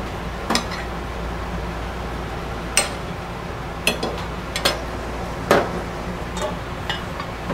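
Metal serving utensil clinking against a glass bowl and plates while fries are dished out: a handful of separate sharp clinks spread over several seconds.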